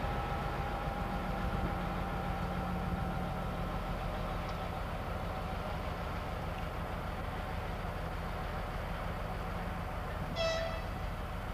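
ST44 (Soviet M62) diesel locomotive's two-stroke V12 engine running steadily as the locomotive moves along the tracks, with a short horn toot lasting about half a second near the end.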